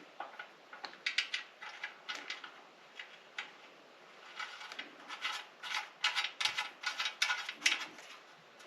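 Light, irregular clicks and rattles of small metal hardware (bolts, washers and nuts) being handled while fitting them to a TV stand bracket.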